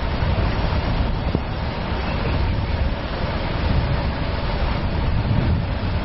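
Steady low rumble of street traffic, with wind on the microphone.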